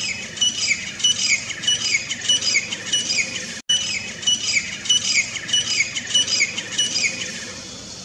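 Grey francolin calling: a loud, fast run of repeated high notes, about three a second, each with a short downward slur. It breaks off for an instant just before the middle and fades out near the end.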